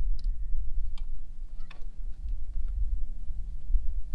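Faint, scattered metallic clicks of a drum-brake return spring and shoes being worked into place with a hand tool on a golf cart's rear brake, over a steady low rumble.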